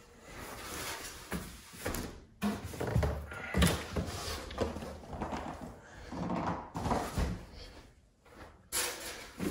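Unpacking noise: rustling and scraping of cardboard, foam and plastic wrapping, with a few dull knocks and thumps, the loudest about three and a half seconds in.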